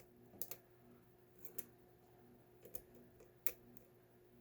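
A few faint, sharp metallic clicks of a lockpicking rake working in the keyway of a deadbolt held under tension, spaced about a second apart, the sharpest about three and a half seconds in. The octo rake is too big for this keyway and is not fitting well.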